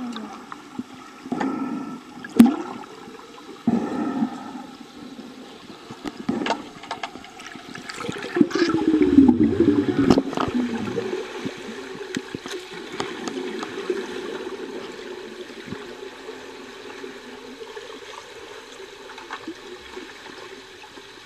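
Pool water heard through an underwater camera housing: steady rushing and bubbling from swimmers in fins churning the water, with scattered sharp clicks and knocks. A louder surge of bubbling and rushing comes about 8 seconds in and dies down about 3 seconds later.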